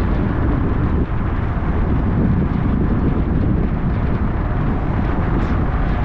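Steady road noise of a car being driven: a constant low rumble of tyres and engine with a hiss on top.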